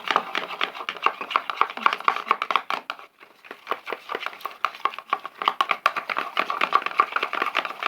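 Rapid, continuous clicking and scraping of a utensil against a container as glue and paint are stirred together into slime, with a brief pause about three seconds in.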